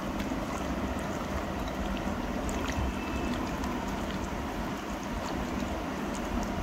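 A hand squishing raw chicken pieces through a wet yogurt marinade in a bowl, with faint scattered wet squelches over a steady low background rumble.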